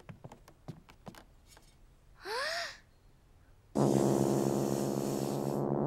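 A short, rising intake of breath, then a loud, low, raspy buzz blown through a tuba, held for about two and a half seconds: a beginner's failed try at making a note.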